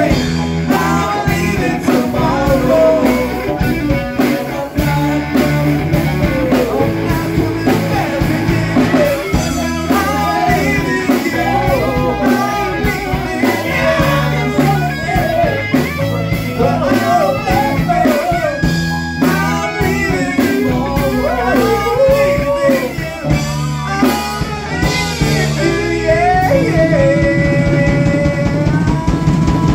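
Live blues-rock band playing: electric guitar, bass guitar and drum kit with keyboard, under a loud lead vocal line.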